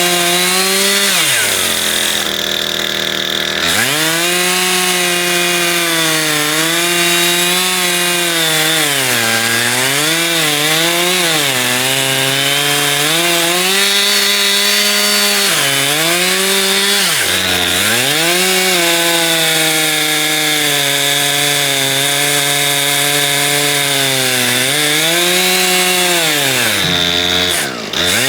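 Chainsaw in an Alaskan chainsaw mill running at high revs while ripping a log lengthwise into a plank. Its pitch sags and recovers again and again as the chain bogs under load, with a few deep dips.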